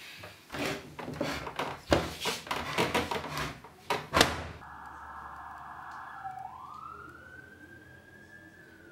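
A rapid run of loud bangs and knocks for about four seconds. Then a siren wails in, rising in pitch and slowly falling away.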